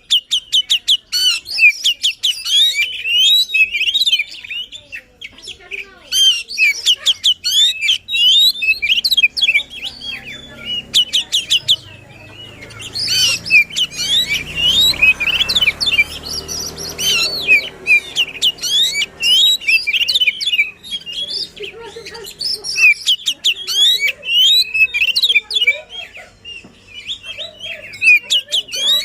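Oriental magpie-robin singing a fast, loud song of chirps, whistles and trills in rapid bursts, the excited song kept birds are played to provoke them into singing. A low rumble runs under the song for a few seconds about halfway through.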